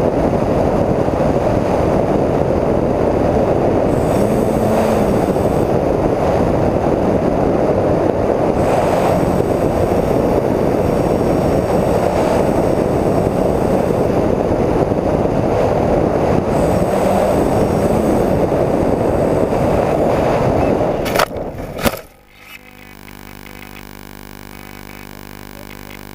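Onboard audio of a twin electric-motor TwinStar II model plane in flight: a steady rush of wind and propeller noise. About 21 seconds in, two sharp knocks come as it comes down into low plants, and the sound drops to a much quieter hum.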